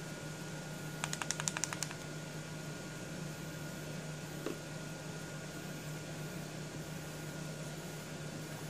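A Shimmer Mist dauber bottle being shaken: a quick run of about eight light rattling clicks about a second in. A small knock follows a few seconds later, over a steady low room hum.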